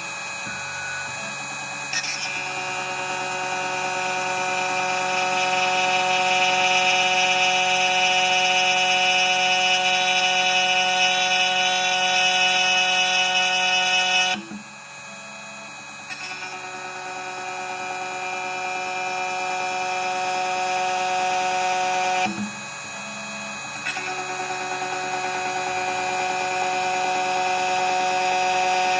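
2M2 Tank CNC key cutting machine milling dimples into a key blank: a steady motor whine made of several held tones, rising slowly in level. It dips out briefly twice as the cutter moves between cuts, and each time starts again with a click.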